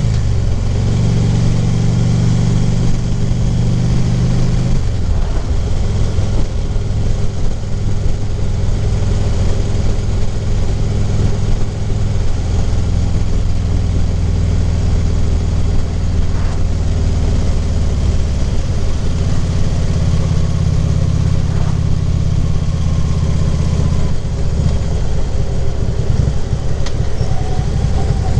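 Harley-Davidson Ultra Classic Limited's V-twin engine running at road speed, with wind rushing over the helmet microphone. The engine note changes about five seconds in and again near the end.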